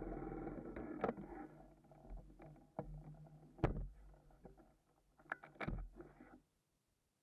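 BMW F800R's parallel-twin engine idling, fading to a faint low hum after about a second, with a few sharp clicks and knocks over it. The sound cuts off abruptly about six and a half seconds in.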